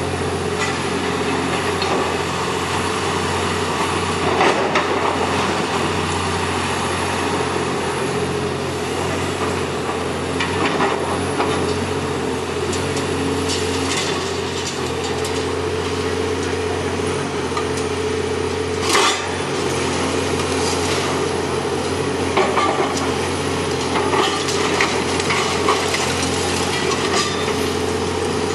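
Caterpillar hydraulic excavator's diesel engine running steadily while its demolition attachment tears at a brick building, with scattered cracks and clatter of breaking masonry and falling rubble. The sharpest crash comes about two-thirds of the way through.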